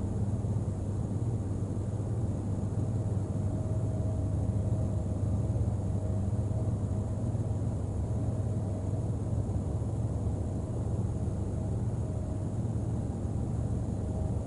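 Steady low rumble of outdoor background noise on a wildlife camera's microphone, with a faint steady hum over it and no distinct events.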